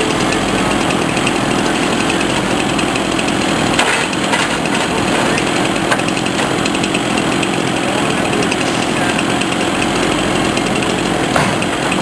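Engine and hydraulics of a truck-mounted knuckleboom log loader running steadily under load as it swings and lowers a heavy log onto the truck. Two sharp knocks, one about four seconds in and one near the end.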